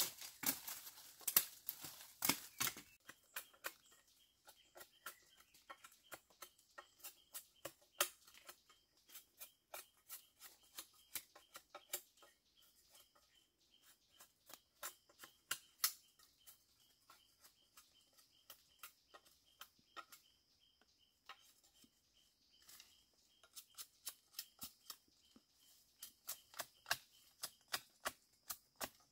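Dry bamboo stems, twigs and leaf litter snapping and crackling in quick, irregular clicks as they are broken and trampled in undergrowth, densest and loudest in the first three seconds. Behind it, a faint steady high-pitched insect drone.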